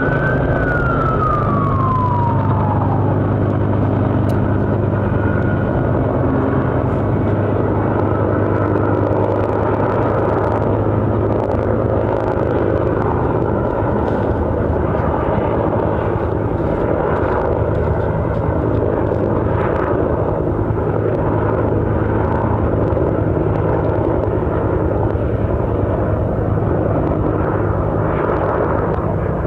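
An emergency-vehicle siren wails once, falling away within the first few seconds, over a steady low engine drone with a rushing noise that runs on throughout.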